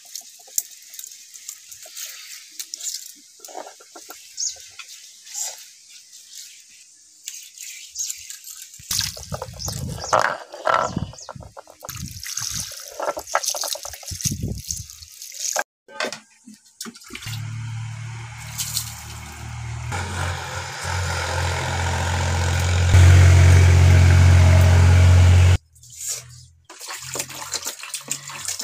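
Water splashing and a wet hand rubbing over a stone grinding slab as it is washed. This is followed by a loud, steady low rumble with a hiss over it that grows louder and stops suddenly a few seconds before the end.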